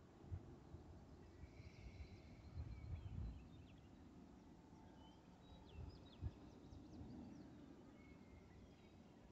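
Faint rural evening ambience with small birds chirping now and then, and a few low thumps on the microphone, the loudest around the middle.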